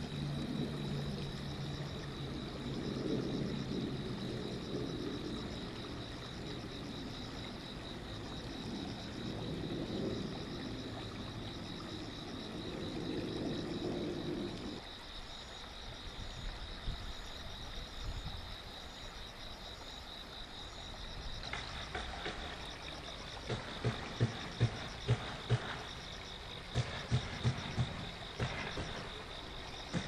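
Outdoor riverside ambience: a steady high-pitched trill throughout, a low rumble through the first half, and near the end two runs of short, low, evenly spaced pulses, five and then four, about three a second.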